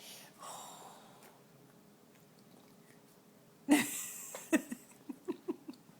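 A toddler eating jello: a soft breath early on, then a sudden loud mouth sound about halfway through, followed by several short hums and smacks.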